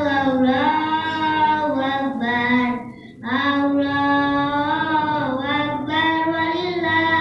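A single high voice sings long, drawn-out melodic phrases that glide up and down in pitch, with a short breath break about three seconds in.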